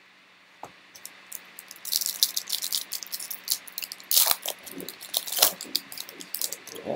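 Foil wrapper of a Donruss Optic trading-card pack being torn open and crinkled by a gloved hand: rapid, irregular crackling that starts about two seconds in, with a couple of louder tears near the middle.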